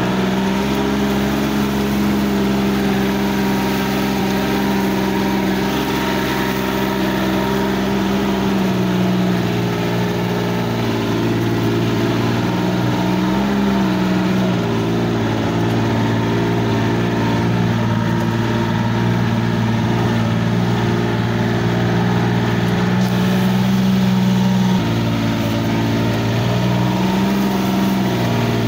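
Side-by-side utility vehicle (UTV) engine running steadily while it drives across a muddy field, its engine note shifting slightly a couple of times as speed changes.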